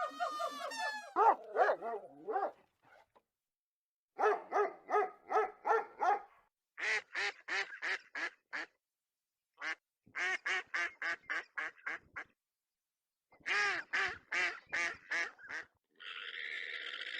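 An animal calling in runs of short, rapid, honking calls, about four or five a second, each run seven to nine calls long with brief pauses between. A longer, rougher call comes near the end.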